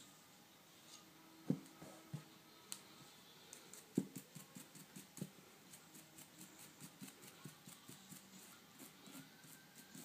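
A few faint knocks of a steel barrel-crowning cutter and pilot being handled, then a toothbrush scrubbing metal chips out of the cutter's flutes in quick, rapid strokes.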